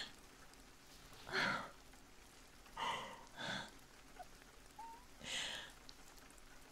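A woman's breathing: four short, audible breaths or sighs, spaced a second or two apart.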